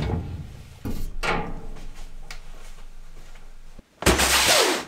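A few sharp knocks of small objects set down on a table, then a cardboard kit box scraping as it is slid across a wooden workbench, loud and brief, near the end.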